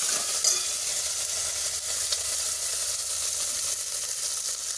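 Tomatoes, curry leaves, chilli and crushed garlic and spices sizzling in hot oil in a steel pot as the rasam tempering fries, a steady hiss.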